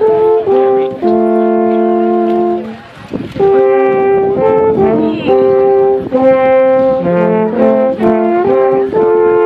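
Two alphorns playing a duet in two-part harmony: held notes that change every half second to two seconds, with a brief break about three seconds in.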